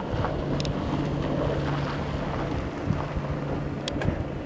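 Distant helicopter's rotor and engine drone with a steady low hum, mixed with wind buffeting the microphone.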